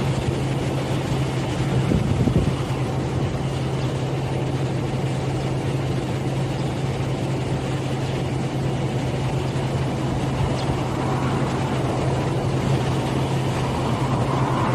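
A machine running steadily with a low, even hum, with a brief louder noise about two seconds in.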